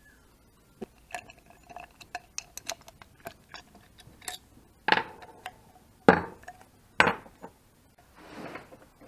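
Light metallic clicks and clinks of a ratchet wrench and small metal bike parts being handled over a workbench, followed by three louder knocks about five, six and seven seconds in and a brief rustle near the end.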